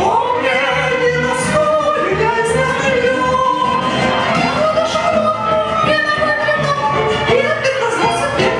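A woman singing an operetta song in a trained, operatic voice, holding notes with vibrato over instrumental accompaniment.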